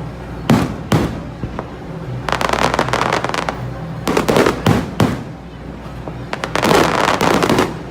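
Aerial fireworks display: sharp shell bursts, with two long spells of dense crackling from crackle-effect shells.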